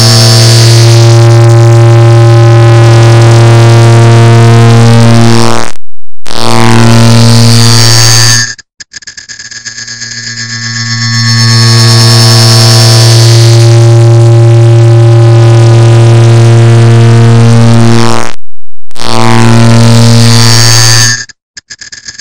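Clock ticking sound sped up and stacked so densely that the ticks merge into a loud, harsh, low-pitched droning buzz. It cuts out briefly about six seconds in, drops away near nine seconds and swells back, and the pattern repeats in the second half.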